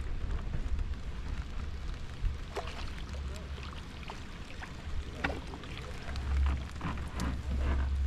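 Wind buffeting the microphone in a low, gusting rumble, with scattered short splashes and taps of water against a small fishing boat.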